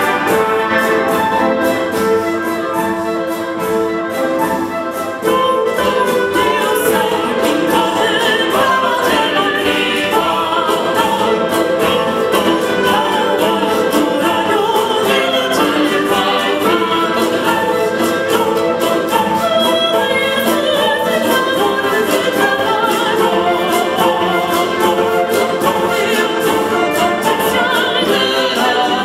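A concert wind band with trumpets, trombones and timpani plays together with a singing choir. The full ensemble comes in suddenly louder about five seconds in.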